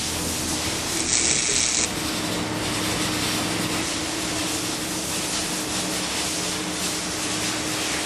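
Steady mechanical buzzing of working machinery, with a brief hiss about a second in that lasts under a second.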